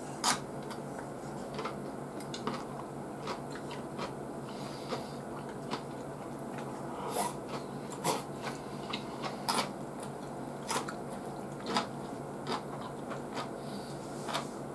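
A person chewing and eating grilled dried hokke (Atka mackerel) and rice, close to the microphone: irregular wet smacks and sharp little clicks scattered through, over a low steady hum.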